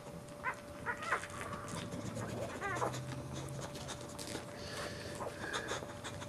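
Boxer dogs whimpering during whelping: a few short high squeaks about half a second and a second in, and a wavering whine near three seconds, over light panting.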